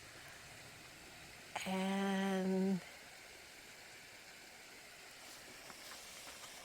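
Faint steady rush of a small creek waterfall, broken for about a second near the middle by one long, drawn-out spoken "and".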